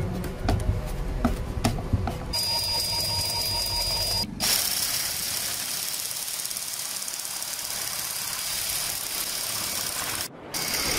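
Hilti SF 22-A cordless drill driving homemade reciprocating shear blades through thin sheet metal: a few clicks at first, then a steady, even mechanical cutting noise with brief breaks about four seconds in and near the end.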